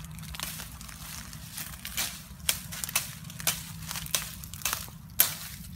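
Lumps of dry, crumbly earth being broken apart by hand: a series of crunches and cracks about two a second, the sharpest near the end.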